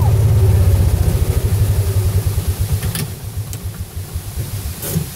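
Small utility vehicle engine running at low speed with a rapid low pulsing, weakening and fading over the second half. A steady rush of water sounds underneath, with a couple of light clicks near the end.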